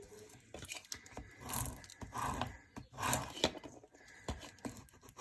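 Crinkly rustling and peeling of vinyl sheet and its backing paper being handled, in several short irregular swells with small ticks between.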